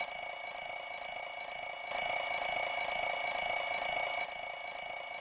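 Alarm-clock bell ringing continuously: a steady, high-pitched metallic trill.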